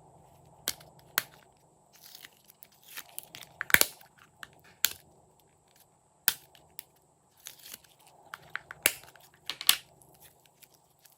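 Glossy slime being pressed and stretched by hand, giving irregular sharp pops and sticky crackles, loudest in two clusters, one about a third of the way in and one near the end.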